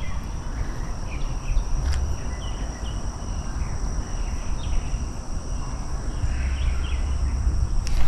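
Insects droning steadily in a high, thin tone, with a few short bird chirps, over a constant low rumble. A single click about two seconds in.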